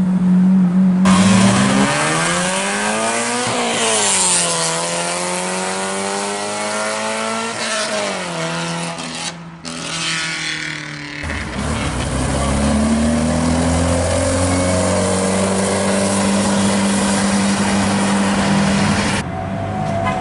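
Sports car engine accelerating hard: the pitch climbs, drops at an upshift about three and a half seconds in, and climbs again. After a break, another car's engine pulls away with a steadier, slowly rising note.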